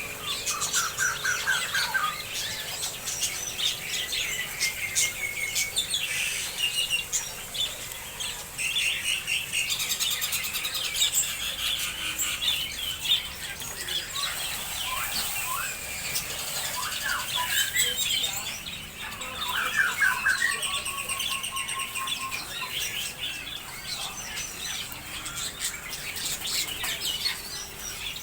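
Many small birds chirping and twittering at once, overlapping short calls and quick trilled notes with no pause.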